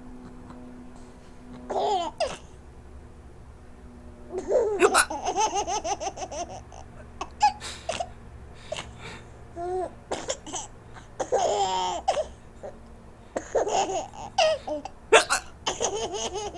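A young child with the hiccups laughing in repeated bouts, the laughter broken by sudden sharp hiccups. After one short burst near two seconds, the laughing starts in earnest about four seconds in.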